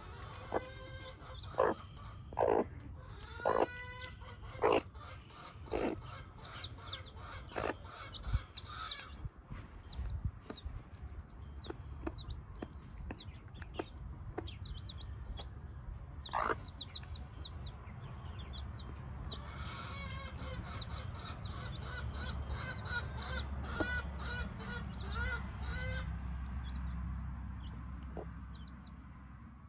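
A hen clucking in short calls about once a second, then a quick run of high peeps from her chicks about two-thirds of the way in, over a steady low rumble. The sound fades out at the end.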